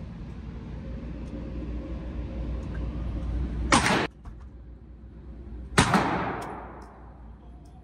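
Two gunshots in an indoor shooting range, about two seconds apart, the second one ringing off in a long echo, over a steady low hum.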